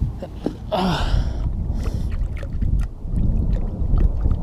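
Wind buffeting the microphone with a heavy low rumble, a short breathy vocal sound from the angler about a second in, and a few light clicks.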